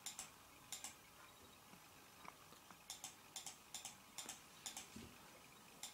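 Light handling ticks and clicks, many in close pairs, over near-silent room tone.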